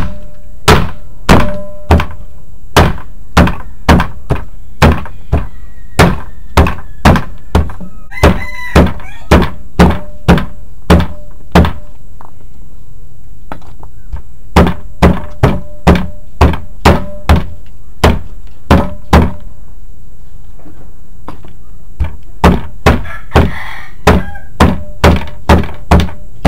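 A heavy cleaver chopping through smoked monitor lizard meat and rib bones onto a plastic cutting board: loud, even thunks about two a second, in runs with a couple of short pauses.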